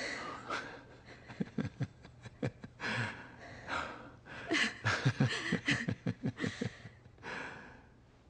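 Soft, breathy chuckling and breathing from a person, coming in short runs of quick pulses with breaths between.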